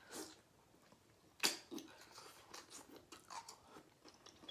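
Close-up eating sounds: a person chewing rotisserie chicken, with one sharp crunchy bite about one and a half seconds in, followed by soft wet chewing and lip smacks.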